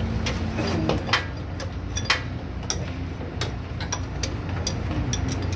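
Irregular sharp metallic clicks and clinks of hand tools working on metal under a car, fitting a power steering pump.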